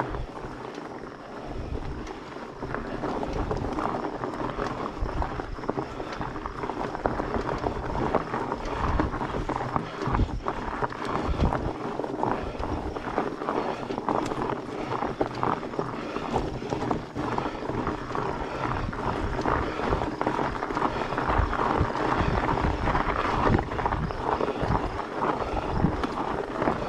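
Fat bike's 4.8-inch tyres crunching over loose, rocky dirt as it is ridden uphill, with scattered small clicks and knocks. Wind buffets the microphone in irregular low gusts.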